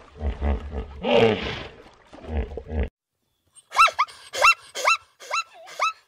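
Zebra braying call: harsh, rasping grunts for about the first three seconds, then after a brief pause a run of high, yelping barks, about two a second.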